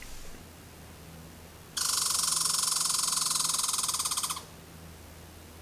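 An animal's loud, rapid rattling call, starting about two seconds in, lasting about two and a half seconds and cutting off sharply.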